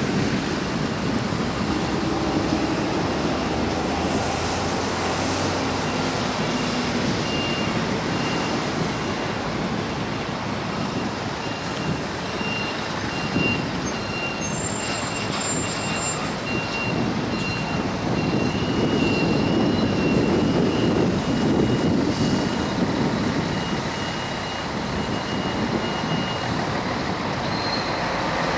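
Steady diesel engine noise from harbour dredging machinery, an excavator working on a barge beside a workboat, mixed with water and wind noise. A faint high-pitched beeping runs through the middle of it.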